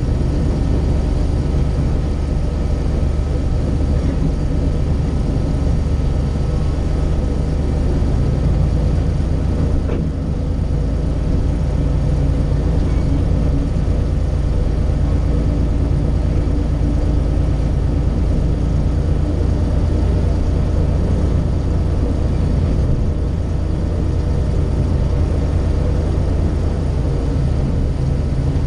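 Diesel locomotive engine running steadily under way, heard close to its exhaust stack, a deep even drone. A single knock sounds about ten seconds in.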